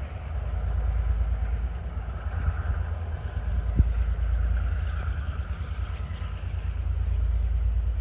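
Empty ore wagons of a freight train rolling past at a distance, a continuous low rumble of wheels on rail, with a single sharp knock about four seconds in.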